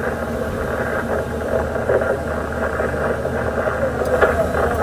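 Diesel engine of a KATO MR-350R rough-terrain crane running steadily with a low hum.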